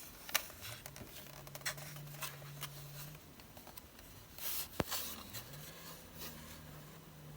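Light clicks, taps and short rustles of a model truck being handled and turned over, with a faint steady low hum behind that drops out for a couple of seconds in the middle.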